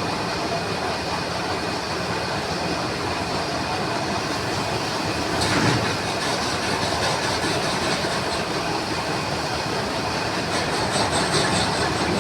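Metal lathe running with a steady mechanical clatter and a faint steady whine. A brief louder scraping noise comes about five and a half seconds in.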